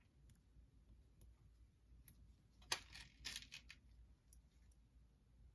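A few short clinks of small crystal chips knocking together as they are picked out of a plastic drawer organiser. The sharpest comes a little under three seconds in, with a quick cluster just after.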